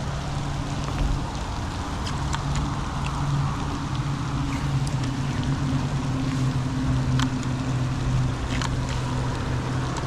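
Boat's electric trolling motor running with a steady low hum, under the hiss of rain, with scattered sharp ticks of raindrops.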